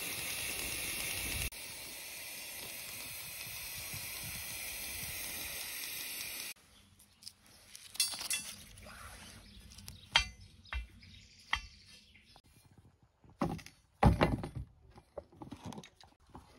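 Aerosol spray paint hissing steadily onto a steel leaf spring around a paper template, stopping after about six seconds. Then a steel scribe scratches the outline into the painted steel, with several sharp clinks and knocks, the loudest near the end.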